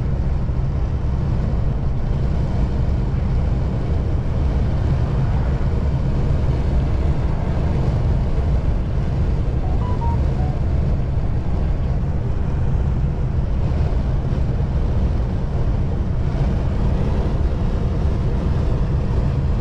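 Steady low drone of a lorry's engine and road noise heard from inside the cab while driving.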